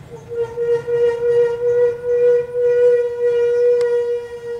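Bus horn sounding one long, steady note for about five seconds.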